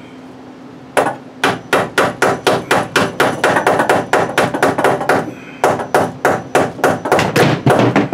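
Hammer rapidly tapping a cable staple into a wooden beam to fasten Romex electrical cable, about four quick blows a second, starting about a second in, with a short break a little past halfway before the blows resume.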